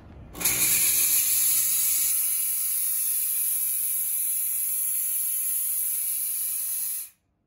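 Chauvet DJ Geyser P7 fog machine firing a vertical jet of fog: a loud, steady hiss that starts about half a second in and cuts off suddenly near the end.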